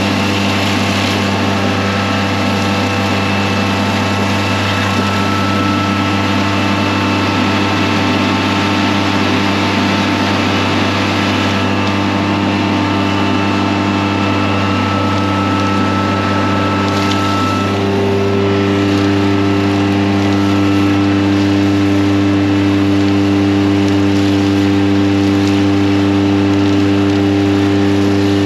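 Ram Vac HX12 hydro-excavation truck's vacuum system and engine running, a steady loud hum, while a high-pressure water wand cuts soil under the suction tube and the slurry is pulled up. About two-thirds of the way through, a second, higher hum joins in and it gets a little louder.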